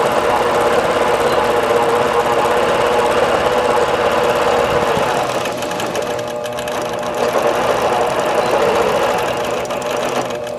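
Longarm quilting machine running steadily as it stitches a basting line along the edge of a quilt's layers, with a constant mechanical hum from the motor and needle.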